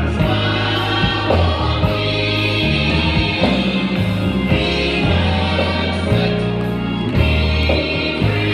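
Live gospel choir and soloists singing over instrumental accompaniment, with a steady bass line of held low notes that change about once a second.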